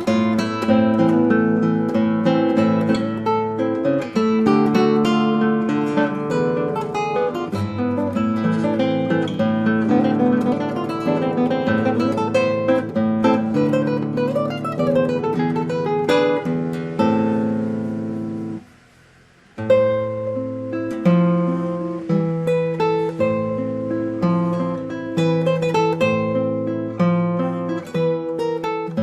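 2005 Paulino Bernabé Especial classical guitar being played, with plucked melody notes over bass and strummed chords. The playing stops briefly about two-thirds of the way through, then resumes.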